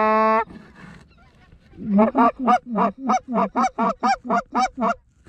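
Goose call blown by a hunter to Canada geese: one held moan at the start, then from about two seconds in a fast, even run of a dozen or so clucks, about four a second.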